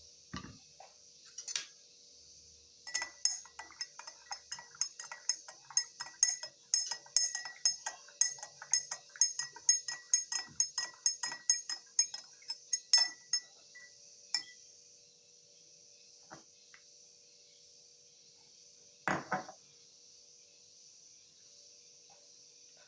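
A spoon stirring in a cup, clinking against its sides several times a second for about ten seconds, with a faint ring after each clink. A single knock comes near the end.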